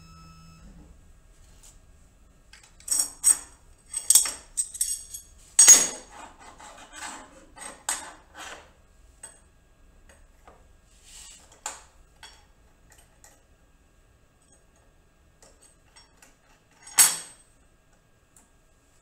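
Metal clinks and taps of collet wrenches and a quarter-inch up-spiral end mill being fitted into a table-mounted router's collet, coming in clusters, with one louder clank near the end. A short motor hum from the router lift stops just after the start.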